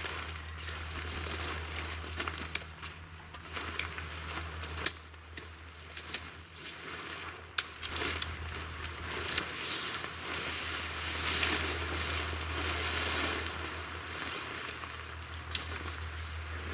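Tent rainfly fabric rustling and crinkling as it is dragged and pulled off a Snow Peak Amenity Dome L, with scattered sharp clicks and crackles. A steady low hum runs underneath and stops abruptly at the end.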